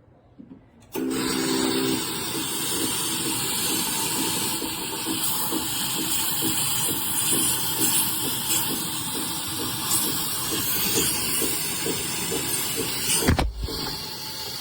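MiiCoffee Apex espresso machine letting off a loud, steady hiss of steam, starting about a second in, with a short knock near the end.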